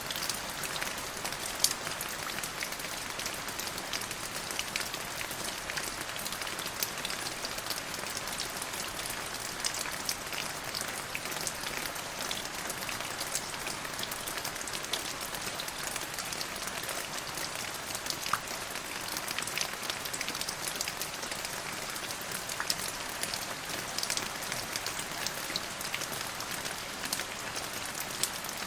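Steady rain falling, an even hiss with many sharp individual drop hits scattered through it.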